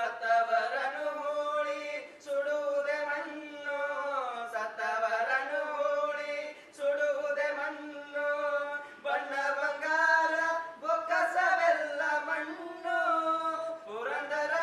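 Male voices singing a slow chant together without accompaniment, in long held notes that glide between pitches, phrase after phrase with short breaths between.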